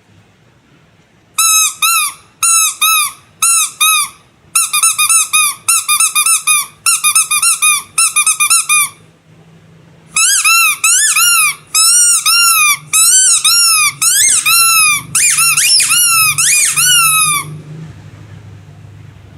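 Squeaky rubber animal toy squeezed over and over, each squeeze a short squeak that rises and falls in pitch. The squeaks come in two runs with a pause of about a second between them, about nine seconds in; the second run has a slightly different pitch.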